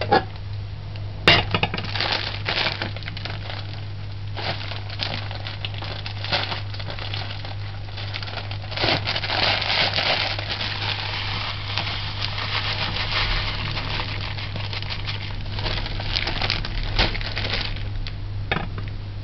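A plastic bag of sugar rustling and crinkling as sugar is scooped out into a glass measuring jug, with scattered light clinks and a sharp tap about a second in.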